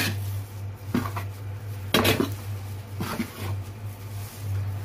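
A metal spoon scrapes and knocks against the inside of a metal cooking pot as thick, fully cooked chana dal halwa is stirred. There are four strokes about a second apart, over a steady low hum.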